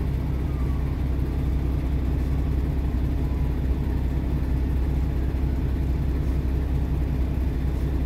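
Semi truck's diesel engine idling steadily, heard from inside the cab as a constant low hum.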